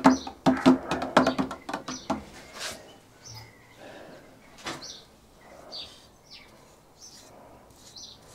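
Music that stops about two seconds in, then faint, high, repeated chirps and a few light clinks from a screwdriver stirring enamel paint in a metal tin.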